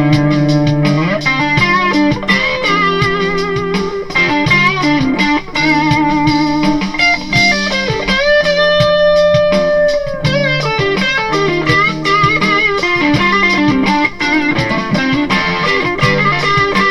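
Kiesel Delos electric guitar played through an amplifier in a lead improvisation: quick runs of single notes with vibrato, and one note held for about two seconds around the middle, over a steady low backing.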